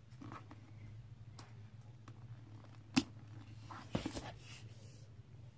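Metal clasps on a bag strap clicking as the strap is hooked onto a purse: one sharp click about three seconds in, then a few quicker clicks about a second later, with faint handling clicks in between.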